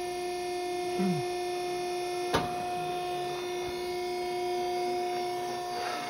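Hydraulic ironworker's pump motor running with a steady electric hum, with one sharp metallic clank about two and a half seconds in.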